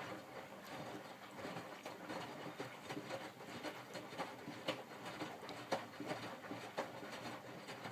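Miele W562 front-loading washing machine's drum tumbling wet cotton bedding in rinse water, with sloshing and splashing broken by irregular soft knocks. It starts abruptly.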